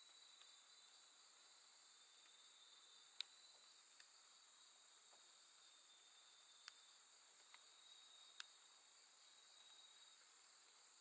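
Faint, steady night chorus of crickets and other grass insects: continuous high trilling with a fainter pulsing above it. A few faint sharp clicks come through now and then.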